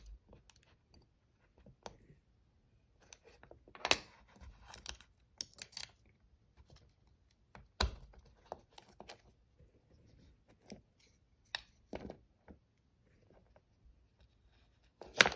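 Small metal clicks and taps of a Demko AD20 folding knife being put back together by hand: the steel liner, pivot and bearing parts knocking and seating against each other at irregular intervals, with a sharper click a little before the end.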